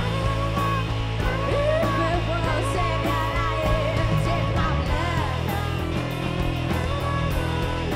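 Rock band playing with electric guitar, a steady bass line and drums, and a singer's voice carrying a wavering melody over the top.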